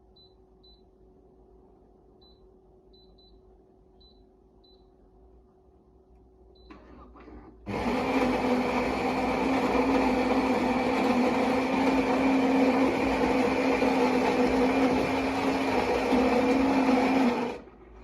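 Philips EP5144/70 fully automatic espresso machine running for about ten seconds, a loud steady whir with a low hum that starts suddenly and cuts off sharply, with a few faint high ticks and clicks before it starts.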